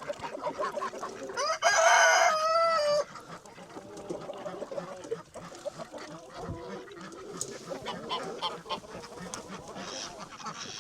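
A rooster crows once, about a second and a half in, a call of about a second and a half that falls in pitch at the end. Quieter clucking from a flock of chickens follows.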